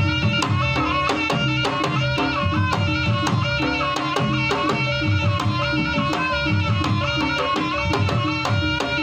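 Javanese jaranan gamelan music: a kendang hand drum playing quick, steady strokes over pulsing struck gongs, with a held, stepping melody from a reed pipe.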